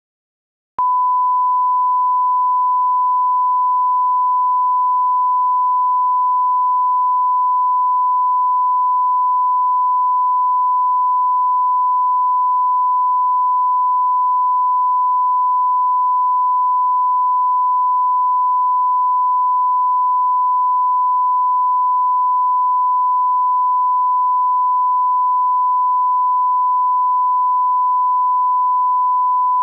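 Steady 1 kHz reference tone, the test tone that goes with colour bars at the head of a video, starting abruptly just under a second in and holding one unchanging pitch.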